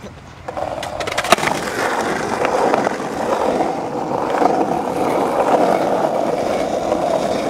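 Skateboard wheels rolling steadily over rough asphalt, the rumble building up as the board gets going. A few sharp clacks come about a second in.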